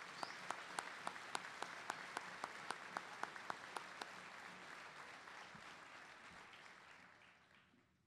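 Audience applauding. One person claps close by, about four sharp claps a second, over the first four seconds. The applause fades out near the end.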